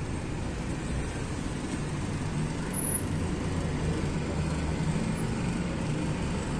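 Steady road-traffic noise of a city street: a low, even rumble of engines and tyres.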